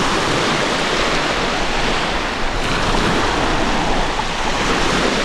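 Baltic Sea surf washing steadily onto the beach, with wind on the microphone adding a low rumble.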